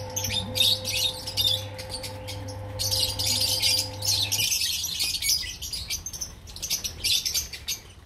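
Flock of lovebirds chirping and chattering continuously in rapid, overlapping high calls. Under them is a steady low hum that cuts off suddenly about four and a half seconds in.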